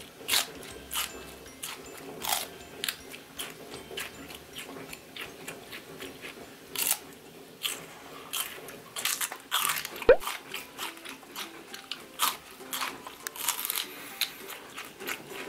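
Raw celery stalk being bitten and chewed close up: a run of irregular, crisp crunches.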